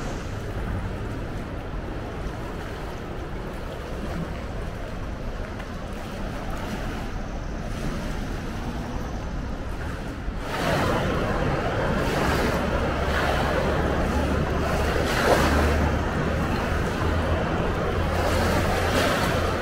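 Floodwater of a swollen river rushing over and past a submerged trail, a steady wash of moving water. It gets clearly louder about ten seconds in, with a low rumble underneath.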